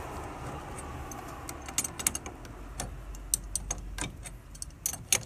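Irregular metallic clicks and taps of a wrench on an old external garden tap as it is worked loose from its wall fitting, over a low background rumble.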